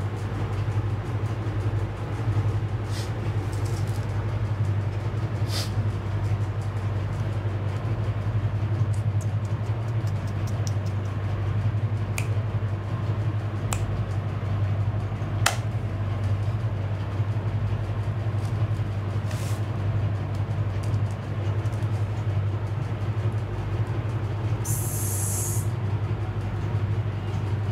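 Steady low hum, with a few faint clicks scattered through it and a short hiss near the end.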